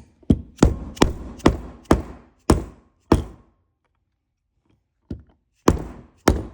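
Sharp taps driving parts into a 1982 Honda GoldWing front brake caliper, where the rubber seals go in hard: about seven taps roughly half a second apart, a pause of about two seconds, then three more near the end.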